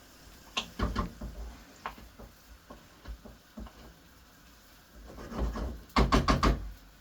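A spoon stirring chopped chicken and bacon in a pan, scraping and knocking against the pan, with a run of five or six quick knocks about six seconds in.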